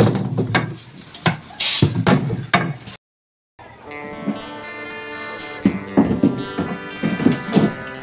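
Wooden boards knocking and clattering as they are handled and stacked away. About three seconds in the sound cuts out briefly, and background guitar music starts, with a few more knocks over it.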